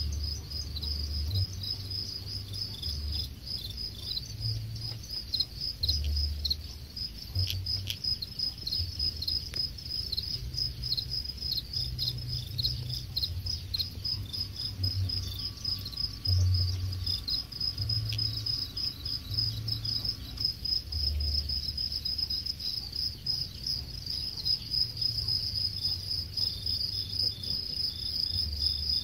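A chorus of many farmed black field crickets chirping, a dense high-pitched rapid pulsing that never lets up. Irregular low bumps and rumble sit underneath it.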